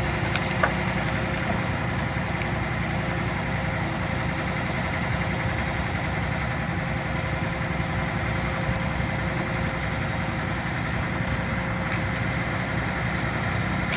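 Heavy diesel truck engine of a crane truck running steadily, with one brief sharp click less than a second in.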